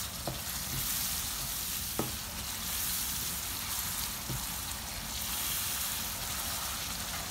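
Onion, ginger-garlic and spice masala with a splash of added water sizzling steadily in a nonstick frying pan while a silicone slotted spatula stirs it. There are a few faint clicks.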